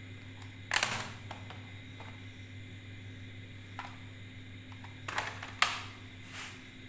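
Clear plastic audio cassette cases clicking and clacking as they are handled and set down among other cassettes: a sharp clack about a second in, and a cluster of clacks around five seconds in, the loudest of them near the end. A steady low hum runs underneath.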